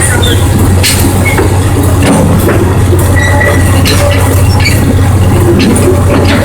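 Excursion train rolling along the track, heard from aboard a passenger car: a steady low drone with scattered clicks and short squeaks from the wheels on the rails.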